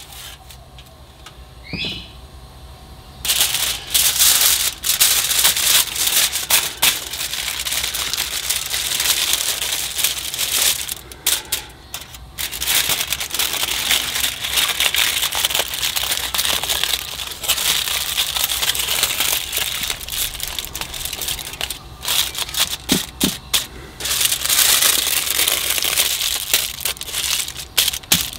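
Aluminium foil crinkling and crackling as it is folded and crimped tightly around a brisket by hand. It starts a few seconds in and goes on with a couple of short pauses.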